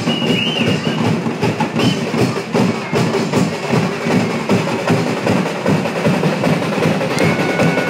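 Drums and percussion playing a fast, steady beat, with a held high note coming in near the end.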